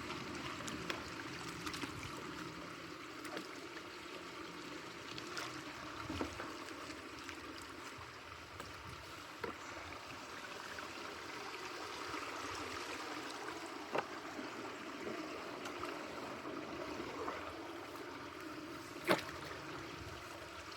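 Water running and trickling steadily through a culvert partly clogged with beaver-dam debris, with a few sharp knocks, the loudest near the end.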